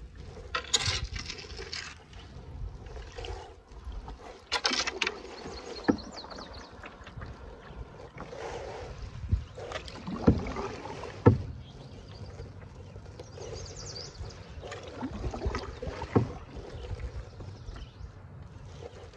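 Canoe paddling: paddle strokes and water splashing and lapping at the hull, with a few sharp knocks. Wind rumbles on the microphone throughout.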